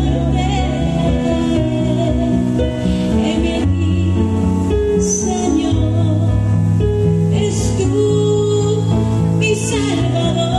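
Christian worship song: a woman singing with vibrato over instrumental accompaniment, with held bass notes and sustained chords.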